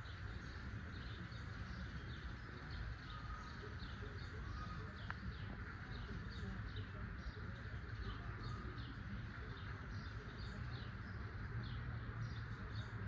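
Hampton Bay Heirloom ceiling fan running steadily: a low hum with air noise, with short high chirps repeating a few times a second.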